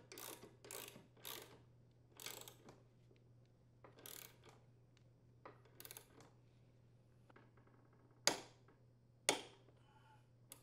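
Faint ratcheting of a torque wrench and socket tightening a lawn mower's blade mounting bolt, with short runs of ratchet clicks as the wrench is swung back and forth. Near the end come two sharper, louder clicks about a second apart.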